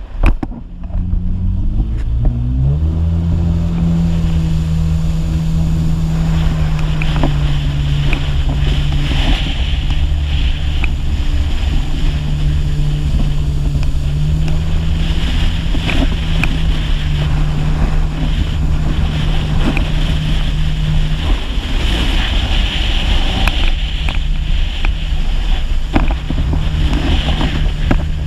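Personal watercraft engine winding up about two seconds in, then running steadily at cruising speed, with rushing water and spray around it. The engine note drops briefly a little after twenty seconds in and comes back up.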